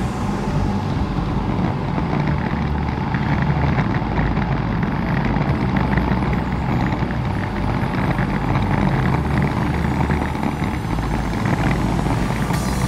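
Strong wind buffeting a camera microphone on a moving bicycle: a heavy, uneven low rumble with a hiss above it.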